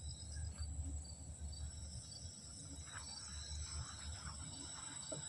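Crickets and other insects chirring in a steady high-pitched chorus, several calls holding together, with a faint low rumble underneath.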